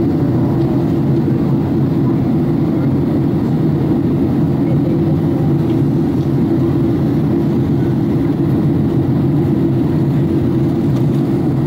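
Steady cabin noise of an airliner on approach to land: an even, low rumble of jet engines and rushing air heard from a window seat inside the cabin.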